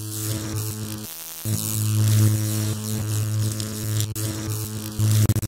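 Electric buzz sound effect: a steady mains-like hum with crackling static. It cuts out briefly about a second in and flickers on and off near the end.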